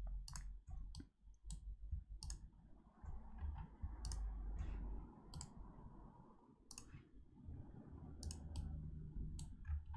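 Computer mouse clicking as structural members are selected in a 3D modelling program: about a dozen sharp single clicks at irregular intervals, over a low steady hum.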